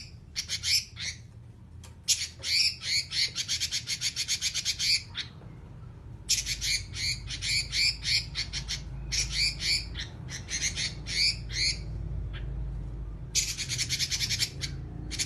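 Red-billed leiothrix (Pekin robin) singing long, rapid, harsh rattling chatters (the 'nyerecet' of songbird keepers). The chatters come in about five bursts of one to three seconds each, separated by short pauses.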